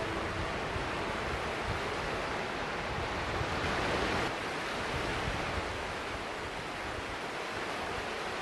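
Sea surf washing onto a sandy beach: a steady rush of breaking waves, swelling louder once about four seconds in, with a low wind rumble on the microphone.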